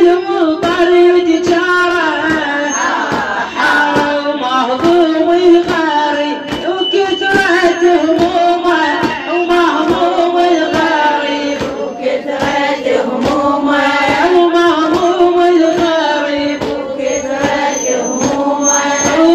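Chanted Shia mourning lament (latmiyya) in a melodic voice, over a steady rhythmic beat of chest-beating (latm).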